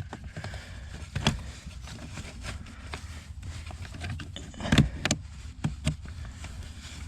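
Several sharp plastic clicks and knocks as electrical connectors are plugged back in and parts handled under the dashboard: one about a second in, then a cluster about five to six seconds in.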